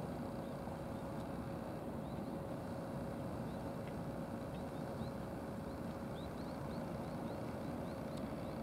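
Steady outdoor background rumble with a faint steady hum, and a run of short high chirps starting about two seconds in and coming more often near the end.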